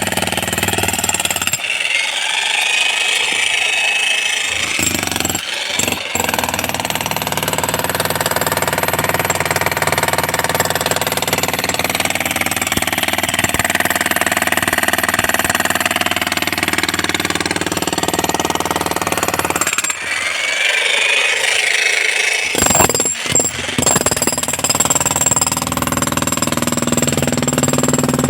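Electric chipping hammer breaking up brick and concrete, a continuous rapid hammering, with two short spells where the deep thudding drops away, about two seconds in and again about twenty seconds in.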